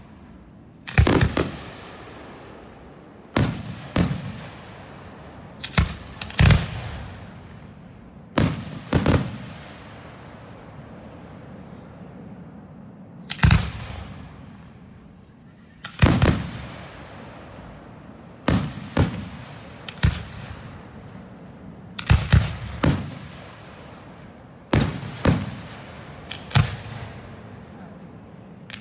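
Aerial fireworks exploding one after another: sharp booms at irregular intervals, often in quick pairs, each trailing off in a rolling echo.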